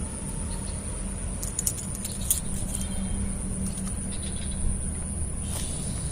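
Steady low outdoor rumble with a faint high steady whine, and a few small clicks and rustles about two seconds in.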